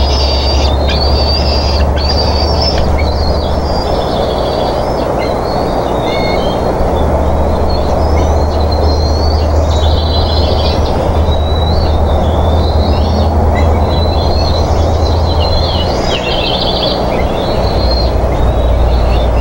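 Bald eagle eaglets giving repeated high, squealing food-begging calls over a fish. Under them run a steady rushing noise and a low hum from the nest camera's microphone.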